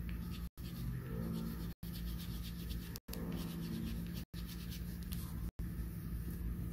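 Quick scratchy colouring strokes on paper over a steady low hum. The sound cuts out briefly about every second and a quarter.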